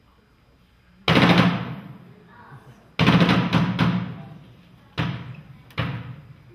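A drum struck hard with sticks, its liquid-covered head splashing up with each blow. There is a loud hit about a second in, a quick flurry of hits around three to four seconds, and single hits near five and six seconds, each ringing out in the hall.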